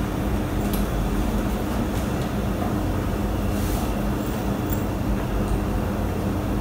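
A steady, loud mechanical hum with rushing noise, and a few faint clicks over it.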